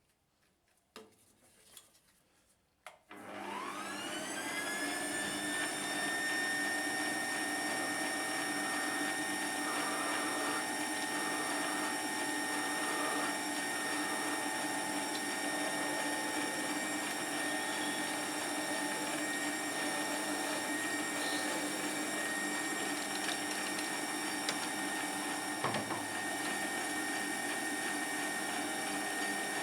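Small metal lathe switched on about three seconds in: its motor whine rises in pitch for about two seconds as it spins up, then runs steadily while machining a piece of brass. A few light clicks come before it starts and a single knock near the end.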